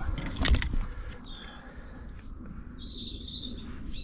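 Small birds chirping and singing, several short high phrases one after another, over a low outdoor rumble. About half a second in there is a brief cluster of rustles and thumps, the loudest sound here.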